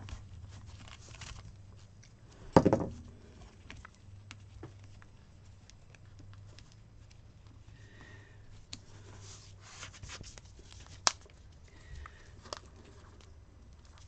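Paper sticker sheets handled and stickers peeled off their backing: soft rustles and peels. One thump comes about two and a half seconds in, and a sharp click near eleven seconds.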